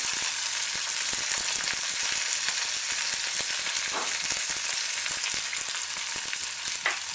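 Boiled babool (acacia) pods frying in hot oil in an aluminium pan: a steady sizzle.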